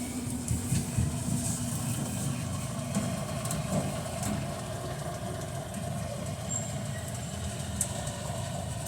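Electrolux LTC10 top-loading washing machine running with a steady low mechanical rumble and a few light clicks.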